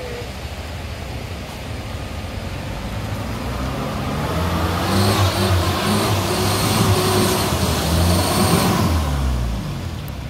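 Off-road 4x4's engine revving as it crawls down a deep muddy rut, getting louder as it comes closer, its pitch rising and falling, then easing off and dropping near the end.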